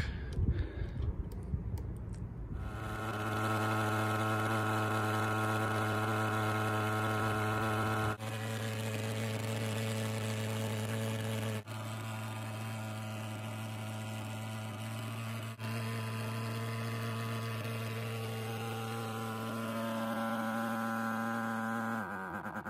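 LongRay TS-35A thermal fogger's gasoline pulse-jet engine running, a very loud, steady buzzing drone as it puts out fog. The drone dips briefly three times and fades out near the end.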